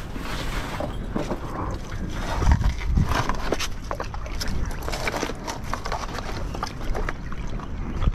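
Sneaker footsteps scuffing and knocking on rocks and loose stones as someone clambers over a rocky shoreline, a string of short irregular clicks and scrapes over a steady low rumble.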